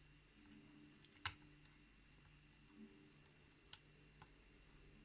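Hook pick working the pins of a pin-tumbler challenge lock under tension, giving a few faint, sparse metallic clicks, the sharpest about a second in, as pins are lifted and set.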